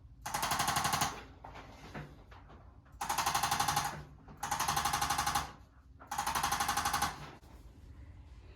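A handheld electric percussion adjusting instrument firing rapid taps, about ten a second, in four bursts of about a second each.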